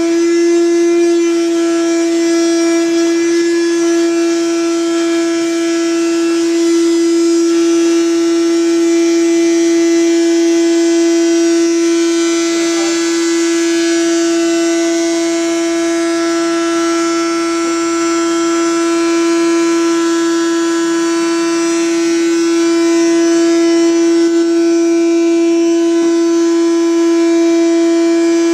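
A loud, continuous tone at one steady pitch with a ladder of overtones, held without a break or change.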